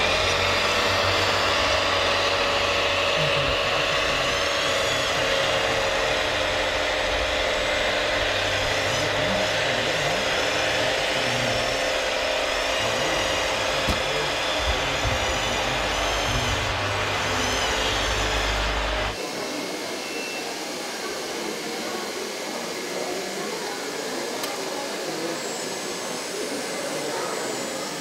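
Hydraulic pump and motor of an RC Komatsu PC490LC excavator whining steadily, with a low rumble underneath, as the boom and bucket work. About 19 seconds in this stops abruptly and gives way to the quieter murmur of a busy hall with voices and a faint motor whine from an RC hook-loader truck tipping its container.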